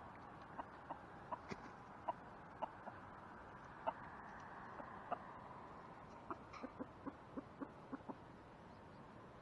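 Chickens clucking: short single clucks spread out, then a quicker run of lower clucks about six seconds in.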